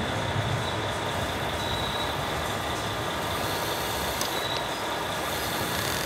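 Steady running noise of radio-controlled model trucks and construction machines, with no distinct event standing out.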